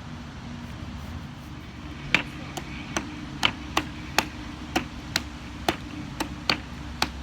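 A stirring utensil tapping against a mixing bowl while slime is stirred: sharp taps about two a second, starting about two seconds in, over a low steady hum.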